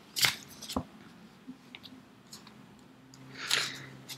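Tarot cards being handled: a short shuffle rustle right at the start, a single click about a second in, then a soft rustle of cards near the end.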